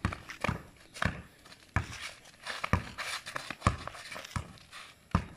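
Basketball being dribbled on concrete: a string of sharp bounces at an uneven pace.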